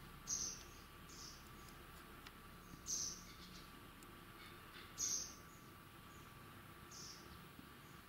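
Juvenile white wagtail giving short, high chirps, five of them about one every second or two, three louder than the rest.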